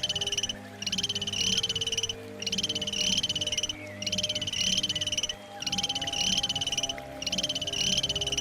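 An animal calling with a rapid, pulsing high-pitched trill, each trill about a second long and repeated every second and a half or so, about six times. Faint steady low tones sound underneath.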